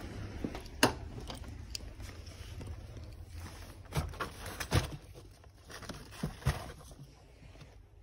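Footsteps on a parking-garage floor, then the knocks, clicks and rustle of someone getting into a car with a bag: a handful of sharp knocks, the loudest a little before the middle, over a low steady hum.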